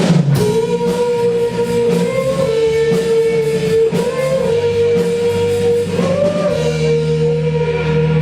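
Amplified guitar holding one long note, bent up slightly and back three times, over a low held note.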